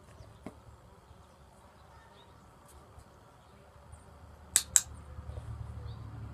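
Dog-training clicker pressed and released, two sharp clicks about a fifth of a second apart a little past the middle, marking the dog's correct response. A low steady rumble comes in just after.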